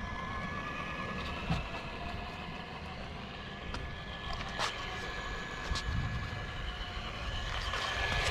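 Remote-control fan car running: a steady mechanical whir with a constant high tone and a few sharp clicks, growing louder near the end.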